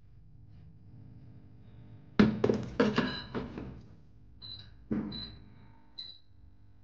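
Air fryer basket knocking and rattling as it is pushed into a pink Meco air fryer, a run of clunks followed by one more knock, then three short high beeps from the fryer's touch panel as it is set.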